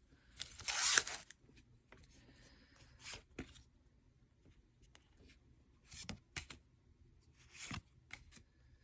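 Pokémon trading cards being handled and slid against one another, with a longer papery rustle about a second in and a few short brushes and scrapes afterwards.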